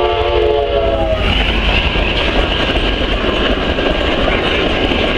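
Talgo passenger train passing close by. The locomotive's multi-tone horn sounds a steady chord that cuts off about a second in, then the loud, steady rush of the train's wheels on the rails as the cars go by.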